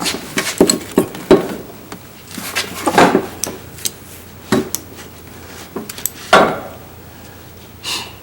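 Irregular metal clinks and knocks as the driveshaft carrier bearing and its mounting hardware are guided up into place and the threads started by hand.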